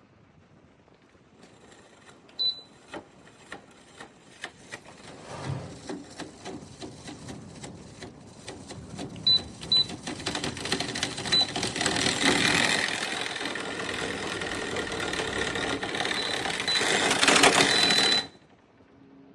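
Tower fan running with a clicking rattle, its air noise growing louder, with several short high beeps from its controls; the sound stops suddenly near the end.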